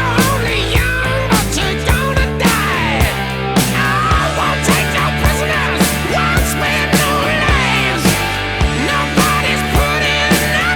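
Rock music with a steady drum beat, distorted guitar and lead guitar slides.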